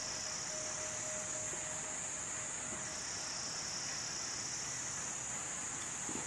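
Insect chorus: a steady high-pitched buzz that shifts slightly in pitch about three seconds in, over a faint hiss.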